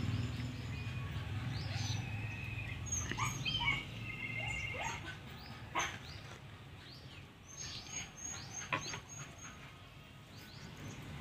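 Birds chirping: scattered short calls, a quick trill about three seconds in, and a run of short high notes later on, over a low hum that fades after the first few seconds.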